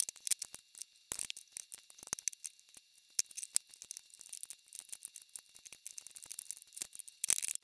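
Rubber bands and a hook being worked on a plastic peg loom: irregular light clicks and rattles as bands are looped up over the plastic pegs, with louder handling noise near the end.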